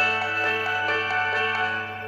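Samsung Galaxy S10 ringtone playing: a bright electronic melody of separate notes, roughly two or three a second, that starts to fade right at the end.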